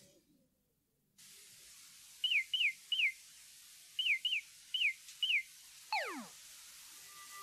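Faint tape hiss with seven short chirps that fall in pitch, in quick groups, then one longer whistle sliding steeply down from high to low.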